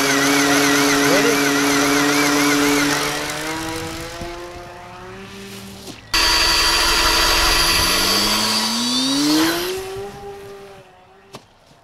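Electric motors of a radio-controlled Magnus-effect plane whining steadily as its spinning KFC-bucket rotor wings and propeller run; the whine fades away, then starts again abruptly about six seconds in, with one motor rising in pitch for about a second and a half before it dies away.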